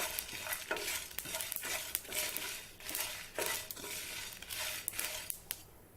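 Spatula stirring and scraping whole spices being dry-roasted in a pan, in irregular strokes that grow fainter near the end.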